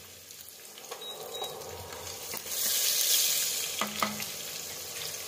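Chopped onion and whole spices (cumin, ajwain, coriander seeds) sizzling in hot mustard oil in a steel kadhai as they are stirred with a wooden spatula. The sizzle grows louder for a couple of seconds in the middle.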